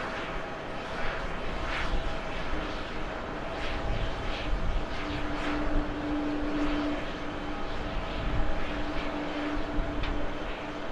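Boeing 777-200 airliner rolling out on the runway just after landing, its jet engines giving a steady rumble. A held whine comes in a couple of seconds in and is strongest around the middle.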